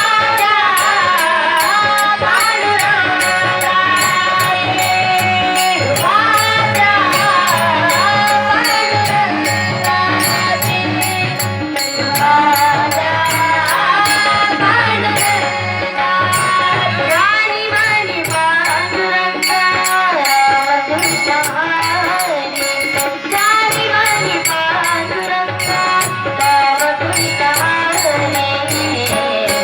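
A woman singing a song with many sliding ornaments in the melody, over a steady held drone, with evenly spaced high percussion strokes keeping time.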